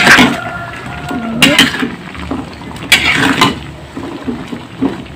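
Metal spatula scraping and clanking against a metal wok as a luffa stir-fry is stirred: three sharp scrapes about a second and a half apart, the first followed by a faint ring.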